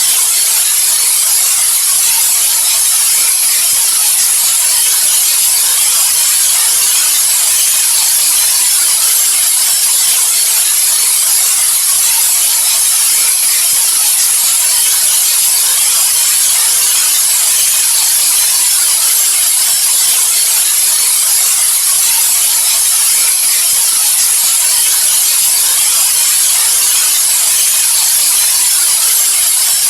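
Steady white noise: an even, unchanging hiss with no breaks, strongest in the high treble.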